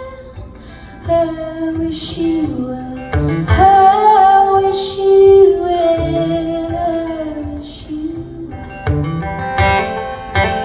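Live music: a woman singing long held notes over strummed acoustic guitar.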